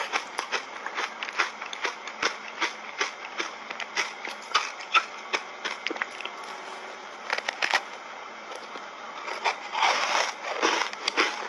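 Close-up eating sounds of a buckwheat soft-ice cupcake coated in matcha powder being bitten and chewed: a run of small crunchy clicks, thickening into denser crunching near the end.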